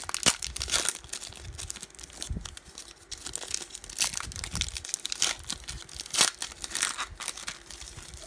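Foil wrapper of a sealed baseball-card pack being torn open and crinkled by hand: a run of irregular crackles and rips.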